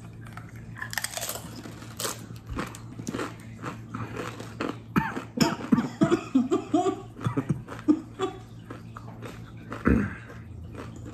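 Two people biting into and chewing the crisp One Chip Challenge tortilla chip, a steady run of close crunches and chewing noises.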